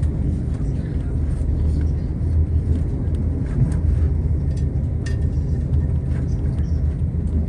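Steady low rumble inside a moving Irish Rail Class 22000 diesel railcar: underfloor engine drone and wheels running on the rails, with faint scattered clicks.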